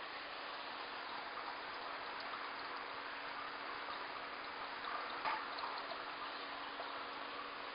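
Steady trickling of running water in a fish tank, with a faint steady hum underneath and one brief light knock about five seconds in.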